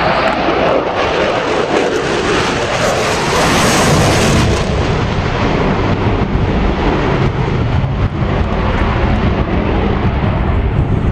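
F-22 Raptor's twin F119 turbofan engines roaring at high power during a display pass, loudest about four seconds in, then settling into a deeper rumble as the jet moves away.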